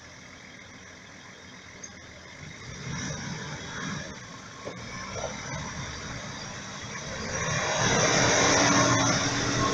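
Engine of a parked Nissan Patrol four-wheel drive idling, a steady low hum that grows louder near the end.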